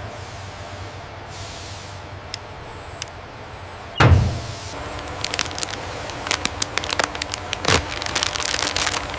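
Industrial machinery: a steady low hum with a short hiss, a heavy thud about four seconds in, then a rapid run of sharp clicks and knocks.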